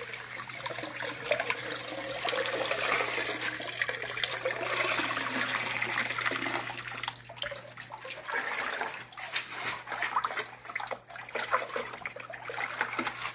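Water running down a small metal sluice and splashing into a plastic tub. About halfway through it breaks into uneven pouring and splashing as the tub is emptied into a bucket and a piece is rinsed by hand in the water. A steady low hum runs underneath.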